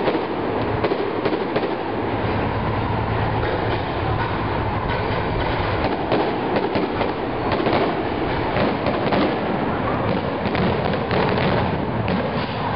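Fireworks going off in a dense, continuous crackle of rapid pops and cracks.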